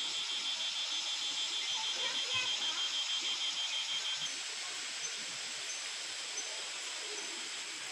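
A high-pitched, rapidly pulsing insect trill over a steady high hiss of insect noise; the trill stops about four seconds in.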